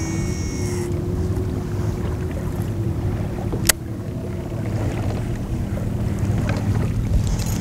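Wind buffeting the microphone on a boat on open lake water, a steady low rumble with a faint steady hum under it. A single sharp click is heard about halfway through.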